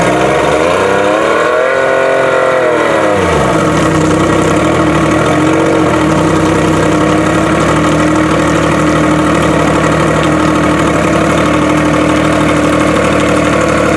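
Evinrude E-Tec 90 HP two-stroke outboard running out of the water. Its revs climb, peak about two seconds in, and drop back by about three and a half seconds, then it idles steadily.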